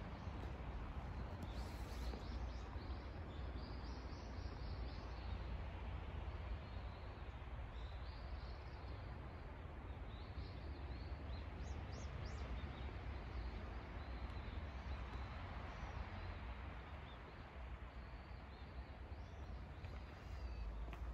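Quiet rural outdoor ambience: small birds chirp in short calls now and then, in a few clusters, over a low steady rumble and hiss.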